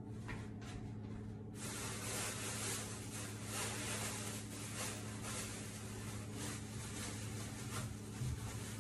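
A steady hiss that starts suddenly about a second and a half in and keeps going, over a low steady hum.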